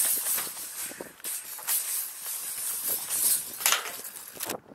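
Irregular bursts of hissing, rustling noise on a body-worn camera's microphone, rising and falling several times.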